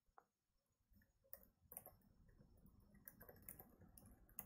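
Faint computer-keyboard typing: scattered key clicks that start about a second in.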